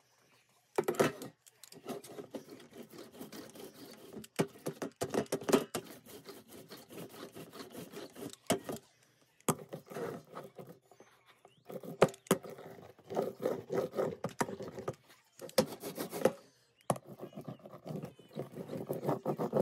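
Rubber ink brayer rolling over a tacky layer of block-printing ink on the carved woodblock and the metal inking sheet: a sticky rolling sound with many small clicks, in passes of a second or several, split by short pauses.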